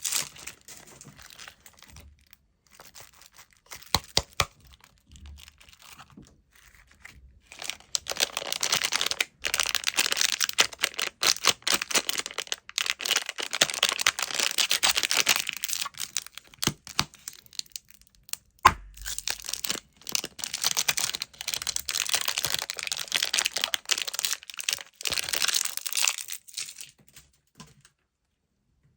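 Candy wrappers crinkling and tearing as they are opened by hand. There are scattered crackles at first, then two long spells of dense crinkling, and the sound stops shortly before the end.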